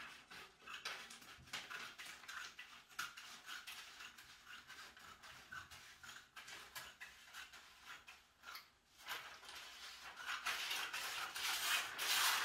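Scissors cutting a paper sewing pattern: a run of short, crisp snips with paper rustling, louder near the end.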